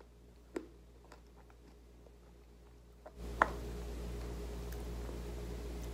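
Near silence with a few light clicks, then steady room noise comes up suddenly about three seconds in, with one more click just after.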